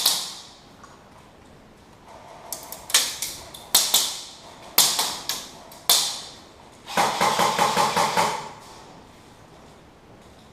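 Airsoft electric guns (AEGs) firing: a shot at the start, several spaced single shots a few seconds in, then a rapid burst of about a dozen shots lasting about a second and a half.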